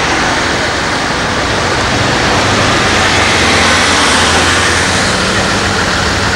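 Magirus-Deutz Uranus fire brigade crane truck driving past, its diesel engine a low steady drone that strengthens near the end, under a loud even rush of noise.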